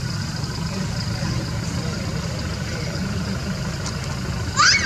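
A steady low rumble throughout. About 4.6 s in, one short high squeak rises sharply in pitch, consistent with a baby macaque.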